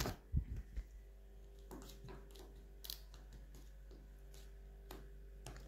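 Faint handling of a small plastic slime pot: a few soft knocks in the first second, then scattered light clicks.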